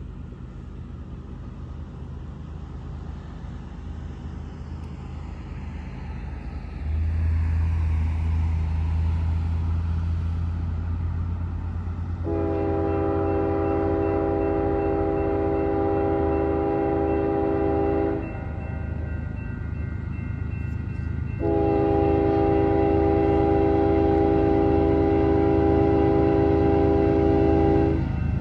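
Locomotive approaching with its diesel engine running, then two long blasts of its air horn, a chord of several notes, each about six seconds with a short gap between.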